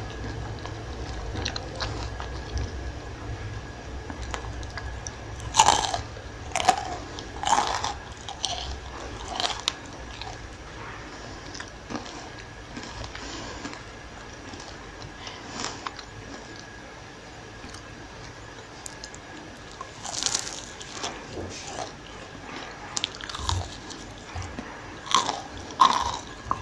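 Crunching bites into crispy fried potato-and-onion pakoras, with chewing; the crunches come in two spells, a few seconds in and again near the end.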